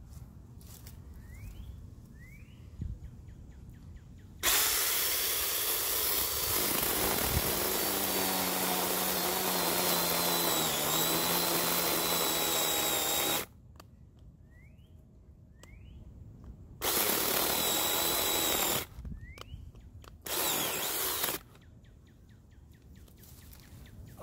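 JPOWTECH 4-inch cordless mini chainsaw (21-volt battery) running while cutting brush: one long run of about nine seconds starting about four seconds in, then two short bursts of about two seconds and about one second. Its whine dips briefly in pitch partway through the long run.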